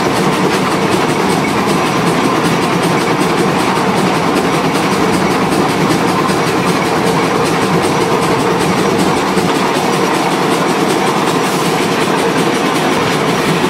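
Climax geared steam locomotive No 6 running along the track, heard close up from its front end: a loud, steady, dense clatter of running gear and wheels on rail.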